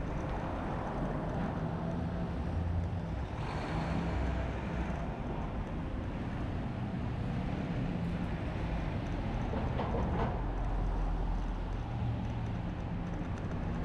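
Steady street traffic noise with a low rumble, heard from a moving scooter.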